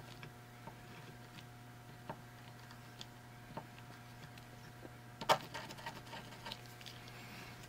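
Sharp pencil point tapping and pressing onto a wooden base through the holes of a small circuit board: a few faint light ticks, then a louder cluster of clicks about five seconds in. A steady faint hum lies underneath.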